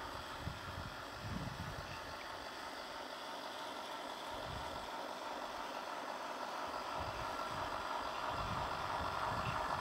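Heng Long 1/16 scale RC Panzer III running across grass, its electric drive and metal tracks making a steady whirring rattle that grows louder near the end as the tank comes closer.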